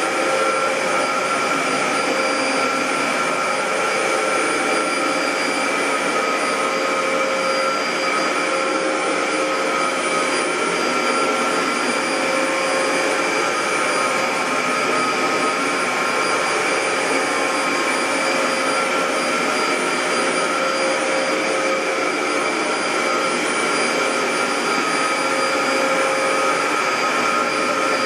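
Dyson DC07 bagless upright vacuum cleaner running steadily: a constant rush of air with a steady motor whine over it. Its brush-roll belts are worn.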